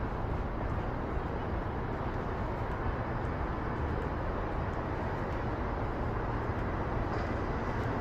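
Steady outdoor city background noise: a low, even hum of distant traffic.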